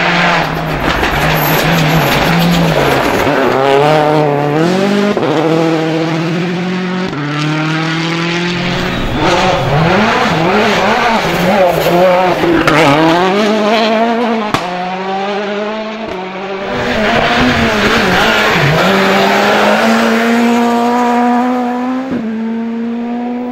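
Rally car engines at full throttle on a gravel stage, each note climbing and then dropping sharply through gear changes as the cars pass. The sound comes in several short cuts from one car to the next. Among the cars is a Citroën DS3 WRC sliding through a bend.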